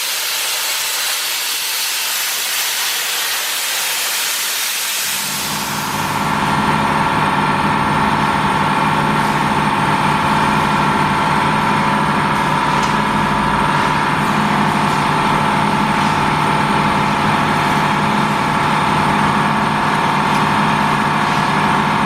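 A steady hiss, then about five seconds in a workshop machine starts up and runs with a steady hum and a whine.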